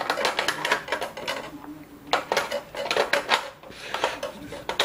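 Rapid clicking and rattling of hard plastic and batteries being handled while batteries are fitted into a Felix the Cat motion clock. The clicks come in two bursts with a short pause between.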